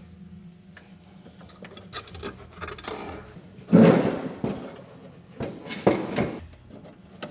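Tool and metal handling noises from work on a snowblower: scattered clicks and knocks, with a louder clunk and scrape about four seconds in and another knock about six seconds in.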